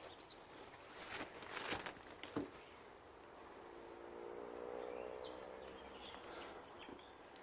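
Quiet woodland ambience: a few crackling steps through undergrowth early on, then a faint distant hum that swells and fades over about three seconds, with small birds chirping.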